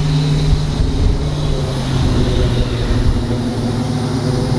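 A car engine idling: a steady low rumble whose pitch dips slightly about two seconds in.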